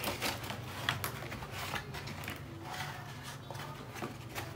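Moulded pulp and cardboard packaging rustling and scraping as it is handled, with scattered light knocks and clicks.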